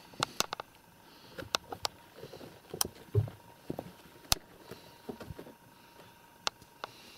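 Two kittens scuffling in and around a felt boot on a carpet: scattered sharp clicks and knocks with soft scrabbling and an occasional dull thump, the loudest clicks about three and four seconds in.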